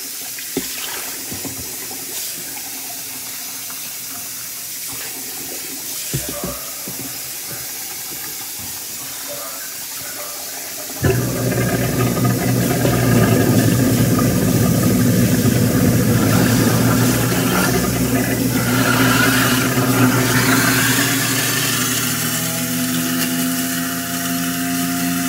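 A few light knocks, then about eleven seconds in an electric juicer's motor switches on suddenly and runs steadily with a loud hum, its pitch shifting a little near the end.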